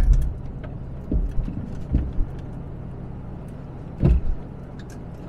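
Front suspension of a Daimler Double Six (Series 3 Jaguar XJ12) knocking over an uneven road: three dull knocks, about a second in, at two seconds and loudest at about four seconds, over steady road rumble inside the cabin. The driver takes it for worn front anti-roll bar (sway bar) link bushes, most likely on the right side.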